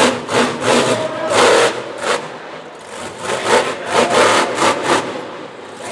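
Monster truck engine revving in short, sharp throttle blips, a few a second, with brief lulls about two and a half seconds in and again near the end.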